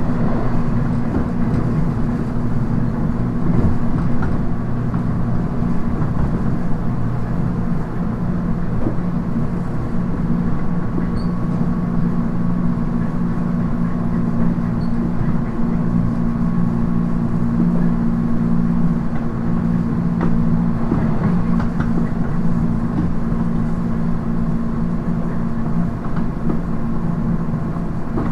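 JR East 719 series electric train running at steady speed, heard from inside the passenger car: an even motor hum with steady tones under the rumble of the wheels on the rails, and occasional faint clicks. This unit is one noted for an abnormal running noise.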